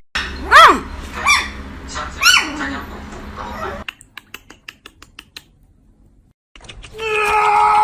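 An animal gives three short, high calls about a second apart, each rising and then falling in pitch. A run of faint clicks follows.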